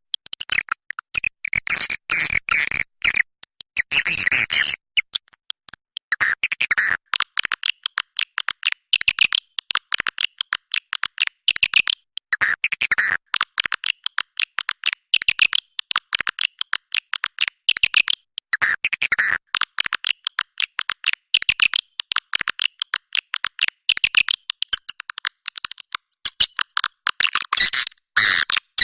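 Recorded swiftlet calls, of the kind played to lure swiftlets into a nesting house: a dense, unbroken stream of rapid high chirps and twitters with no low sound beneath.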